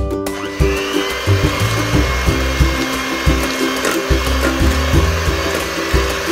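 Electric hand mixer running, its twin beaters whisking egg whites in a stainless steel bowl: a steady motor whine that starts just after the beginning. Background music with a steady bass pattern plays underneath.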